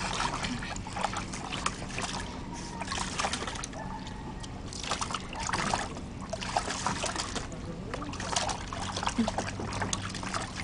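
Shallow water splashing and sloshing in a plastic paddling pool as a pug puppy walks and paddles through it, in irregular bursts.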